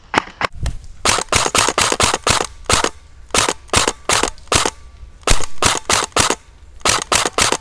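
Airsoft replica rifle firing rapid single shots, sharp close-up cracks about five a second in several strings with short pauses between them.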